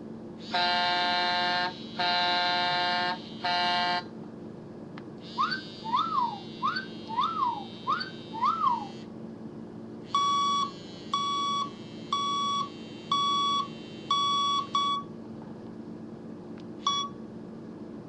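Sound effects from an Android air horn app: three horn blasts (two long, one short), then about five quick whooping siren chirps that rise and fall, then a run of about seven evenly spaced steady beeps and a couple of short ones near the end.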